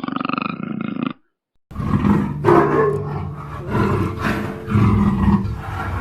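A big cat growling and roaring: a rough pulsing growl that stops after about a second, a brief silence, then a different recording of repeated rough roars and growls.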